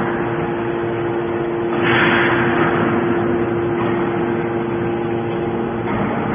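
Hydraulic aluminum can baler running: a steady hum from its motor and hydraulic pump, with a hissing surge about two seconds in that fades over a second.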